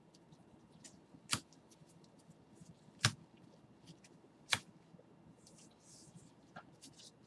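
Baseball trading cards being flipped through by hand: three sharp card snaps about a second and a half apart, with faint ticking and rustling of the cards between them.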